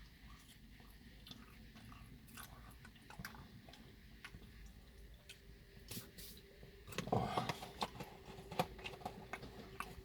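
Quiet chewing and small mouth clicks of a man eating a spicy chicken McNugget, with a louder, lower mouth sound about seven seconds in.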